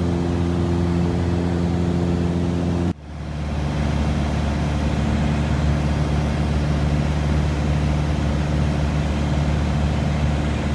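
Steady engine and propeller drone of a JetProp single-engine turboprop, heard in the cockpit. About three seconds in it breaks off abruptly and swells back, running on with a slightly changed pitch.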